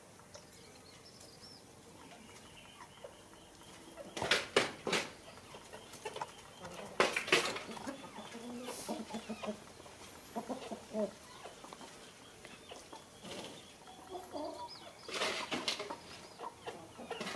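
Chickens clucking in short calls, mostly in the middle of the stretch, with three brief loud noises about four, seven and fifteen seconds in.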